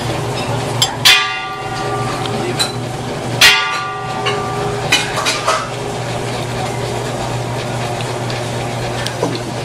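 Tableware clinking at the table: a few sharp clinks in the first half, two of them ringing on for about a second. A steady low hum runs underneath.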